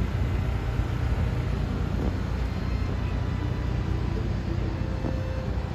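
Steady low mechanical rumble of outdoor background noise, with no distinct events.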